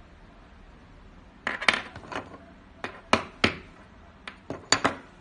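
Sharp metallic clinks of a small spot-welded steel screw knocking against the tabletop: a quick cluster about a second and a half in, then single knocks and a fast pair near the end.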